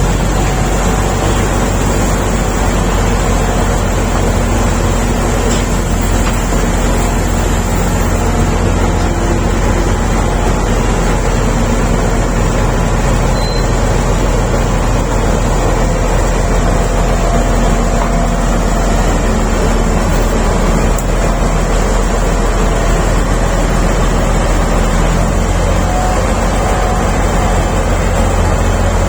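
Diesel engine of an SD32 crawler bulldozer running steadily and loudly, with a deep, even drone.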